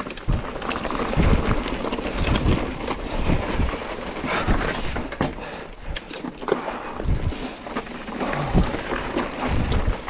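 Mountain bike being ridden over a rocky trail: tyre noise with irregular knocks and rattles from the bike as it rolls over rock.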